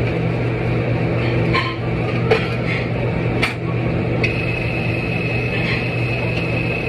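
A steady machine hum with a few sharp knocks, about one and a half, two and a half and three and a half seconds in. A steady high whine joins a little past four seconds.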